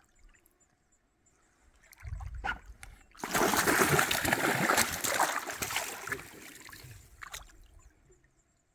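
River water splashing and sloshing as a caught grayling is landed and handled. There is a brief splash about two seconds in, then a louder stretch of splashing lasting about three seconds that fades away.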